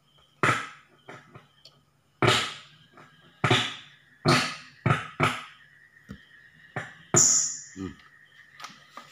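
Sharp CBOX ASP1001 active speaker giving irregular thunder-like bangs and crackles: about seven sharp bursts at uneven intervals, each dying away within half a second. These are the 'guntur' (thunder) fault of its power amplifier, which the technician cures by replacing the 150-watt output parts on both channels.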